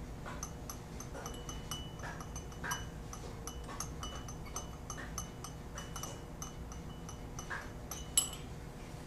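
Glass stirring rod clinking lightly and repeatedly against the inside of a small glass beaker as a titration sample is stirred, each tap ringing briefly; a sharper click comes about eight seconds in. A faint steady hum runs underneath.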